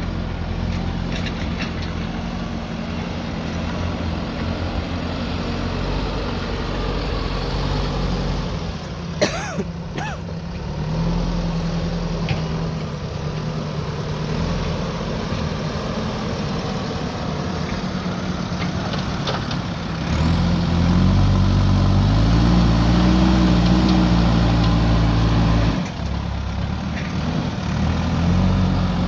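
JCB backhoe loader's diesel engine running steadily, with two sharp metallic knocks about nine and ten seconds in. About twenty seconds in the engine revs up, runs louder and higher for about six seconds, then drops back suddenly.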